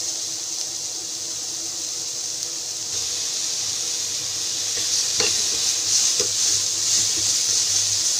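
Sliced onions sizzling in oil in a steel kadai as they are stirred and lightly sautéed. There are a few faint taps against the pan about five, six and seven seconds in.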